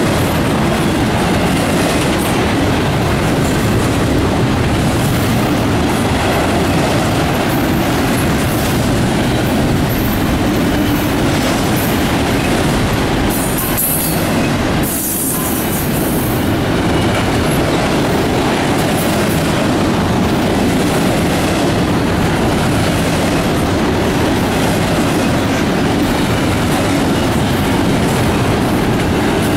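Double-stack container train of well cars rolling past close by: steady loud noise of steel wheels on the rails, with a brief dip about halfway through.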